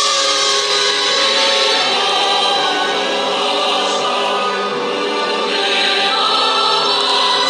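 Choral music: voices holding long sustained chords, with a change of chord about halfway through.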